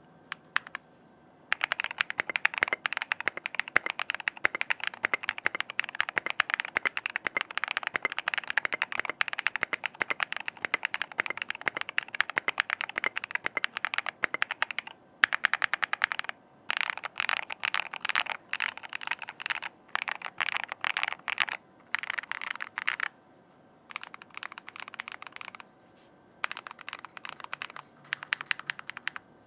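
Typing sound test on an Akko YU01 mechanical keyboard with a resin case: fast continuous typing for the first half, then shorter bursts of keystrokes with brief pauses. Each keystroke is clacky, sharp and distinct.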